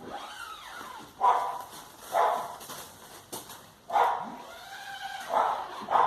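A dog barking, about five short barks at uneven intervals.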